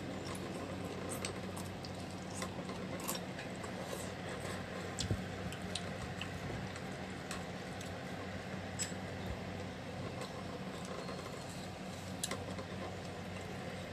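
Metal fork and ceramic spoon clicking and scraping now and then against a ceramic bowl while noodles are eaten, scattered small clicks over a steady low hum.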